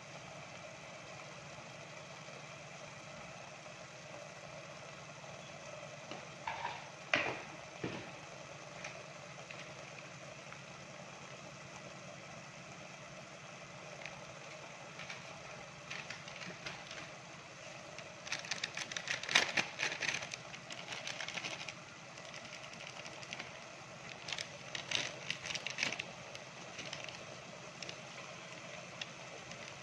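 A steady mechanical hum, broken by clusters of clinks and taps as kitchen utensils knock against a steel cooking pot: a short cluster a few seconds in and two busier bursts past the middle.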